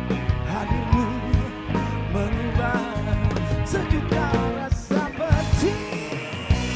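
Rock band playing live, a passage with no sung lyrics: drums, bass and guitars under a wavering lead melody.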